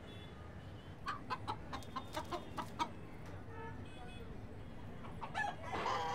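Rooster clucking: a quick run of about eight short clucks, then a louder cluster of clucks near the end, over a steady low city hum.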